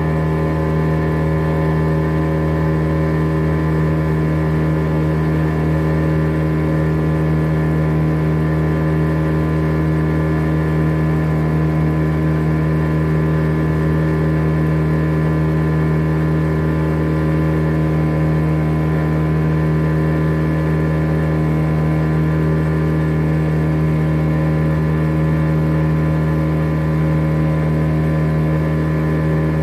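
A small open boat's engine running at a steady cruising speed, holding one even pitch.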